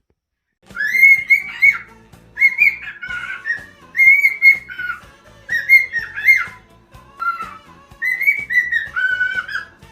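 Cockatiel whistling a tune, starting just under a second in, in short repeated phrases of a few high notes.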